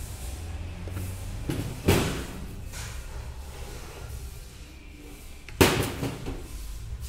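Two sharp knocks about four seconds apart, the second a little louder, as the scooter's plastic air filter box parts are set down on a metal workbench, over a low background rumble.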